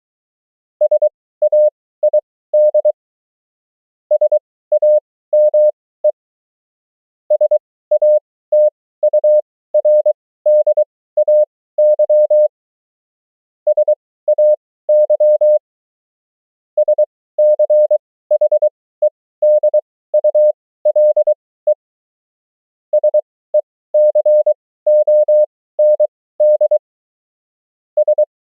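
Morse code (CW) practice tone sending amateur-radio words and abbreviations at 20 words per minute, with characters keyed at 23 wpm. A single steady beep is keyed on and off in dots and dashes, with pauses of about a second between groups.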